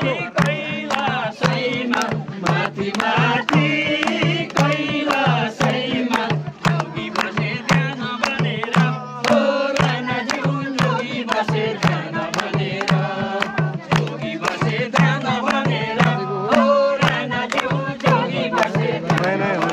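Nepali folk song (lok bhaka) sung live by a group of voices, over a madal drum keeping a steady beat of about two and a half strokes a second.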